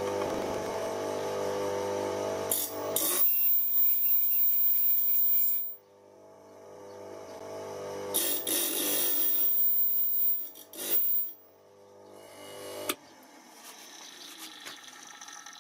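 Electric circular-saw-blade sharpening machine's motor running steadily, with a few short hissing grinds as the grinding wheel is brought against the saw blade's teeth. The sound breaks off abruptly about six seconds in and again near the end, then builds back up.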